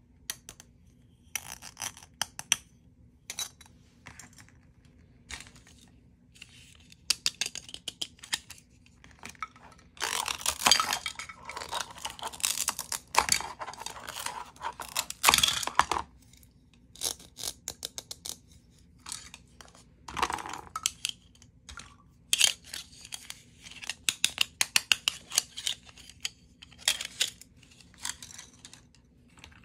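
Toy play-food pieces being cut apart with a plastic toy knife: the velcro joins rip apart with a rasping tear, the longest in the middle, among many clicks and taps of hard plastic pieces and the knife knocking on a plastic cutting board.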